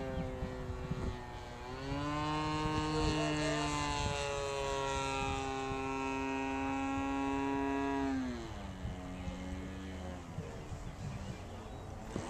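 Engine and propeller of a 106-inch radio-controlled Piper Cub model plane flying overhead: a steady buzz with a stack of even tones. The pitch rises about a second and a half in, holds, then drops back around eight seconds in.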